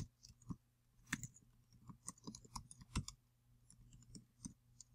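Typing on a computer keyboard: faint, irregular key clicks.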